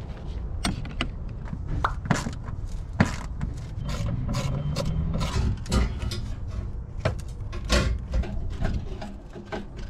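Hand tools clinking in a metal socket set, then irregular knocks and scraping as a fuel pump and sending unit assembly is worked loose and lifted out of a car's fuel tank.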